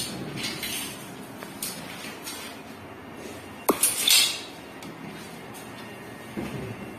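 Clinks and knocks of small hard plumbing fittings being handled, with one sharp knock about halfway through and a brief scrape right after it.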